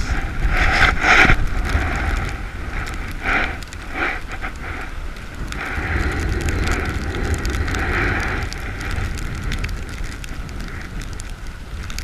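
Gusty nor'easter wind buffeting the microphone, a low rumble that swells and eases, with a scatter of small crackling clicks from sleet hitting nearby.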